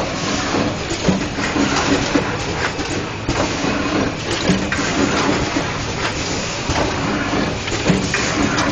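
LH 200 square-bottle screen printing machine running: a steady mechanical clatter and hum, with sharp clicks about a second in and again near the end.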